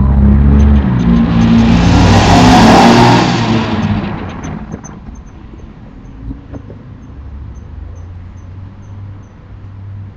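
A car passing close by, loud at first, swelling to a peak about two and a half seconds in and fading away by about four seconds, leaving a low steady hum. Faint high chirps repeat about three times a second in the quieter part.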